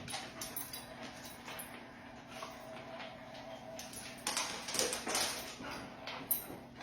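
A dog moving about, with scattered light taps and scuffs that grow louder about four to five seconds in, and one sharp tap near the end.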